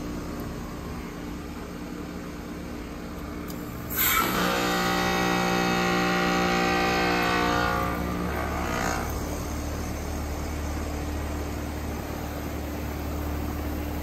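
Heat pump outdoor unit changing over in its defrost cycle. A steady compressor hum runs throughout. About four seconds in, a sudden loud rushing hiss of refrigerant sets in as the reversing valve shifts; it lasts about four seconds and fades, leaving a deeper steady hum.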